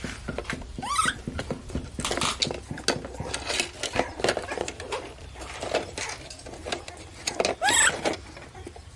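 Plastic crinkling, rattling and knocking as a baby monkey handles a baby bottle in a clear plastic bag inside a plastic toy truck bed. A few high, rising squeaks from the baby monkey, about a second in and again near the end.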